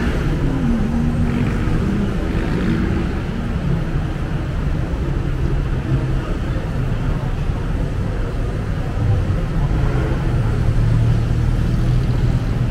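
Steady rumble of dense city road traffic, car and bus engines running and passing.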